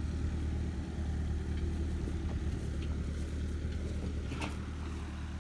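The engine of a 1950 Ford tractor running steadily.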